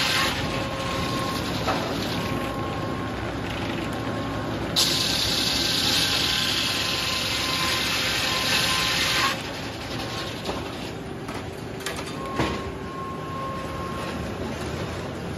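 Large circular sawmill blade ripping lengthwise through a hard maple board with a steady hissing run of the cut. The cut is loudest from about five to nine seconds in, then drops off, leaving the saw running with a few sharp knocks of lumber.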